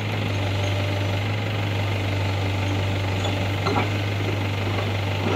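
JCB 210LC excavator's diesel engine idling with a steady low drone.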